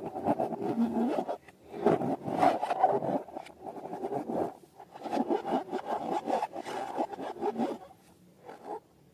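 Balloons and slime being handled by hand, a busy run of rubbing and scraping noises in three stretches that mostly stop near the end.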